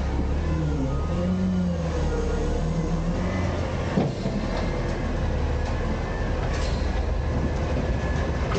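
Autocar/Heil front-loader garbage truck running as it creeps forward, a steady low engine drone with a wavering whine over it, and a single sharp knock about four seconds in.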